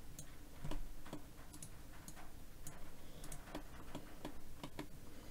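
Computer mouse and keyboard clicks, a few each second at an irregular pace, from someone working in 3D modelling software.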